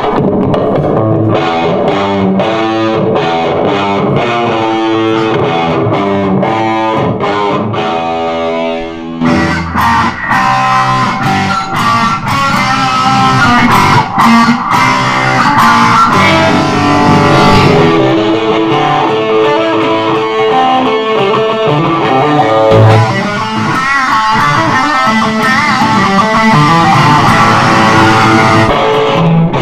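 Music led by electric guitar with a steady beat; it gets fuller and louder about nine seconds in.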